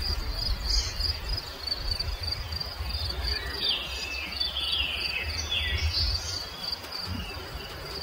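Steady high-pitched insect trilling, with several short descending bird chirps in the middle, over a low rumble.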